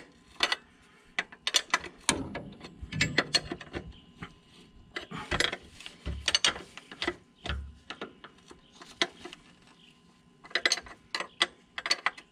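A wrench working the adjuster nuts on a UTV transmission's shift cable end, giving sharp metallic ratcheting clicks in irregular clusters as the cable is adjusted at its bracket.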